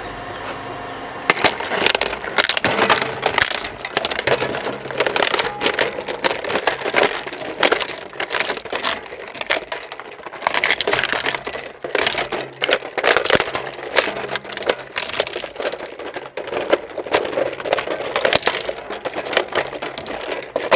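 Twin-shaft shredder crushing a plastic toy transport aircraft: dense, irregular cracking and crunching of plastic. It starts about a second in over the machine's steady running hum.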